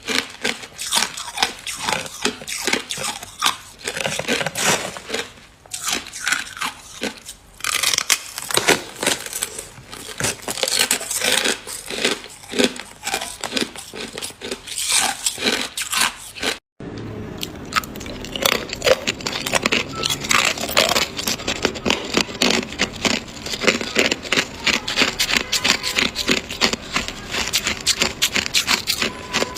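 Hard clear ice being bitten and chewed close to the microphone: a run of sharp cracks and crunches. After a brief cut partway through, the crunching becomes faster and denser.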